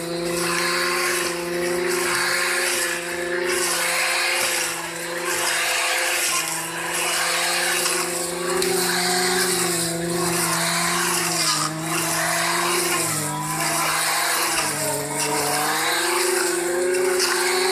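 Brush cutter running at high speed and cutting through dry grass and brush. The cutting noise swells and fades with each sweep. The engine pitch dips briefly a few times in the second half.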